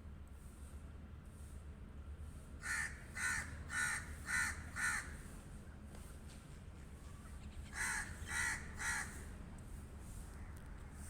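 Pet crow cawing: a run of five short caws about half a second apart, then, after a pause of about three seconds, three more.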